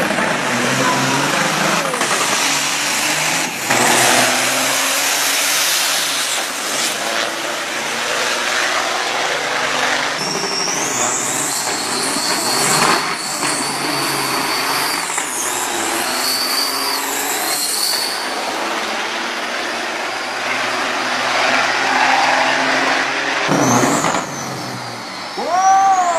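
Diesel truck engines running and revving loudly, with a high wavering whistle through the middle stretch and gliding whistles near the end.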